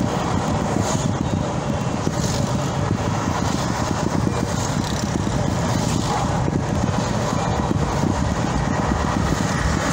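Steady rumble of a car driving along a multi-lane highway at speed: road and engine noise, even throughout, with no single event standing out.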